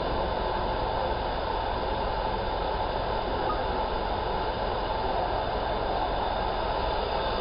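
Steady mechanical hum and hiss of a large-format mirror-scanning laser marking machine running while it marks a metal sheet, even throughout with no distinct clicks or strokes.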